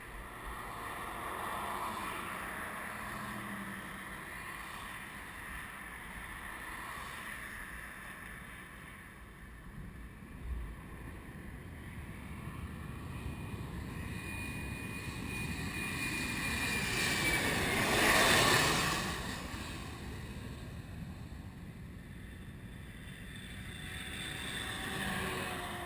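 Boeing 737 jet engines on landing approach, swelling as the airliner passes close by, with a high whine that falls in pitch just before the loudest point about eighteen seconds in, then fading away. Wind noise on the microphone.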